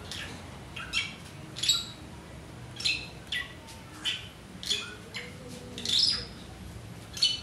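A series of short, high-pitched squeaky animal calls, about one every half second to a second, over a steady low background hum.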